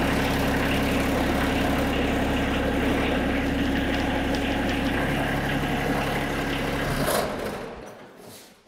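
TYM T254 sub-compact tractor's small diesel engine idling steadily, then switched off about seven seconds in and running down to a stop.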